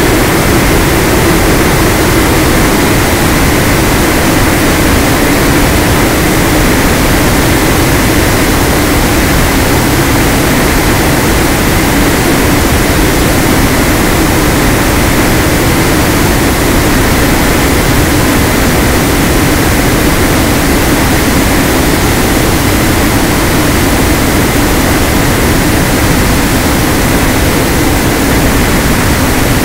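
Onboard sound of an FPV model aircraft's electric motor and propeller running steadily at cruise: a constant drone mixed with loud wind rush.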